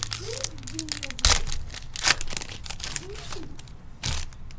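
Trading-card pack wrappers being torn open and crinkled by hand, in several sharp bursts of crackling, the loudest a little over a second in and about two seconds in.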